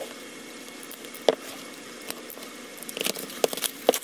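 A K-pop album's card and plastic packaging being handled: scattered soft rustles, with a sharp tap about a second in and a cluster of taps and rustles near the end.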